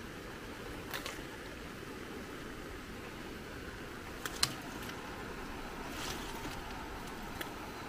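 Swollen creek of rushing floodwater, a steady noise, with a few sharp clicks at irregular moments, the loudest about halfway through.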